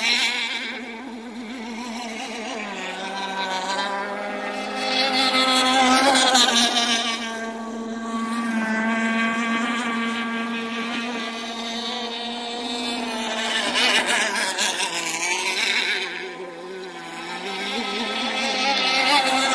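Radio-controlled racing boats running at speed on a lake: a high engine whine with several pitches at once. It swells louder as boats pass close, about six seconds in, around fourteen seconds, and again near the end.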